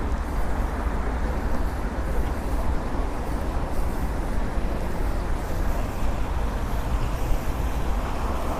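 Steady city traffic noise from a busy avenue: an even, continuous rumble with no single vehicle standing out.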